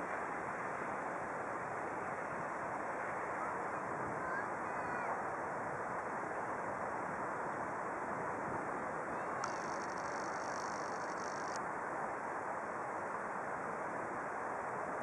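Steady rushing outdoor noise of wind and water along a flooded river, with a few faint bird calls about a third of the way in and a short high hiss about two-thirds through.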